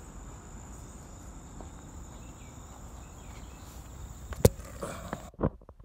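A steady high insect chorus with a low rumble of movement underneath. A sharp knock comes about four and a half seconds in, followed by a few lighter taps, and then the insect sound cuts off suddenly near the end.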